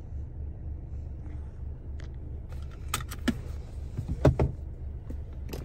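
Steady low, pulsing hum of the Camaro's 2.0-litre turbocharged four-cylinder idling, heard inside the cabin. From about three seconds in there are a few sharp clicks and rattles, the loudest a quick cluster of knocks just past four seconds.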